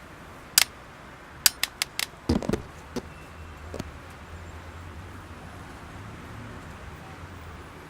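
A few sharp clicks, then a quick run of four more, followed by a handful of duller knocks, over a low steady hum.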